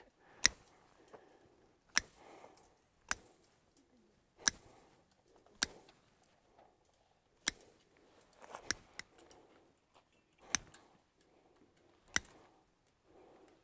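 Wire cutters snipping through the horizontal wires of woven field fence one by one: about nine sharp snaps, one every second or two.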